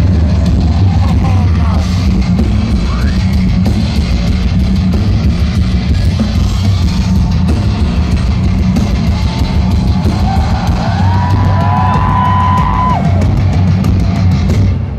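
Live heavy metal band playing through a large festival sound system: electric guitars and a driving drum kit, with one long held high note about eleven to thirteen seconds in.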